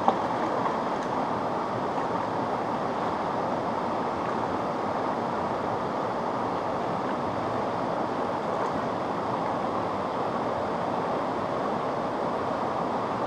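Steady rush of river water running through rapids.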